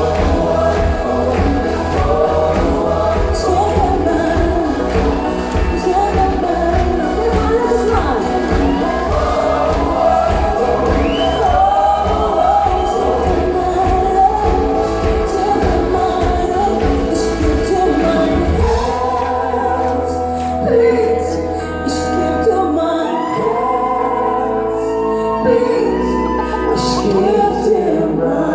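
Schlager pop song performed live, several voices singing over a band with a steady beat; about two-thirds of the way through the drums drop out and the singing goes on over held bass notes.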